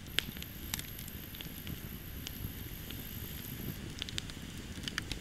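Wood campfire burning, crackling with scattered sharp pops over a steady low rush.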